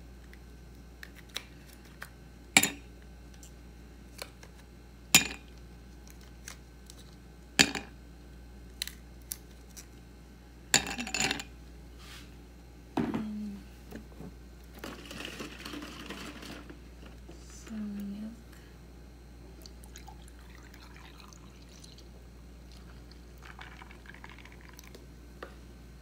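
Ice cubes dropped one at a time into a glass mug, each landing with a sharp clink a couple of seconds apart, then a few more clinks together; later milk is poured from a carton over the ice.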